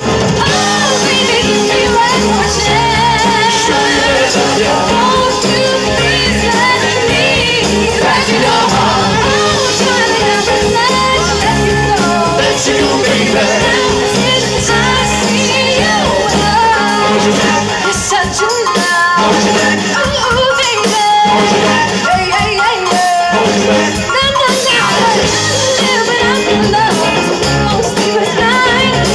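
Live soul show band playing an upbeat number, with singing over a drum kit and congas.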